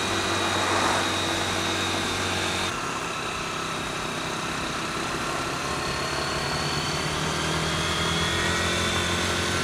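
Motorcycle engine running under way, a steady hum with a high whine over rushing noise. The sound drops a little and changes about three seconds in, and the engine's pitch climbs slowly in the second half.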